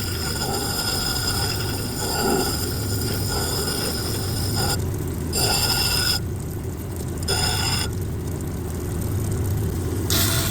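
6-inch Kingsley North cabbing machine running while a malachite slab is ground and polished on its wheels: a steady motor hum under a high whine that drops out several times in the second half.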